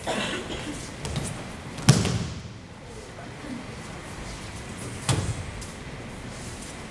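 Judo throws landing on the mats: bodies hitting the mat with breakfall slaps. Two heavy slams stand out, the louder about two seconds in and another about five seconds in, with lighter thuds before them.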